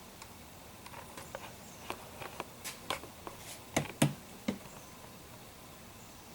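Handling noises: a run of light clicks and knocks, with two louder knocks close together just before the middle.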